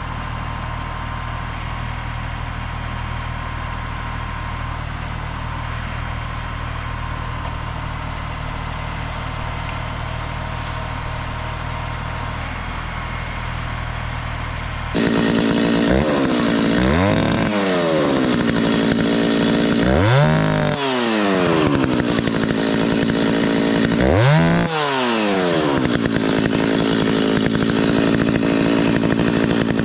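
Stihl chainsaw idling steadily, then about halfway through opened up to full throttle and running loud, its revs dropping and climbing back three or four times.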